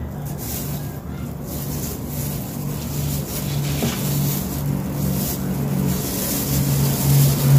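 A low engine drone that grows louder toward the end.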